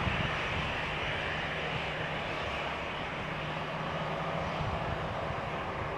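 Airliner engine noise, a steady rushing sound with a faint low hum underneath.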